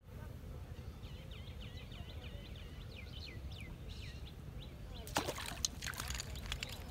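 A hooked fish thrashing at the water's surface, a burst of sharp splashes starting about five seconds in. Before that, a bird chirps rapidly over a low steady rumble.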